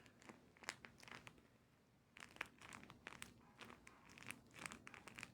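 Faint, irregular crinkling and crackling of a homemade squishy's plastic wrapping as it is handled and squeezed, with a quieter pause in the middle.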